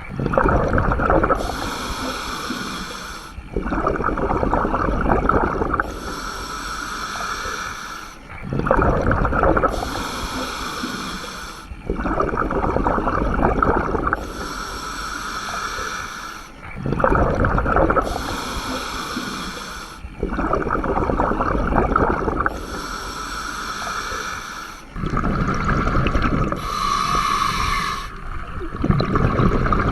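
Scuba diver breathing underwater through a regulator: a hissing inhale through the demand valve, then a louder bubbling exhale as the air escapes, about one full breath every four seconds.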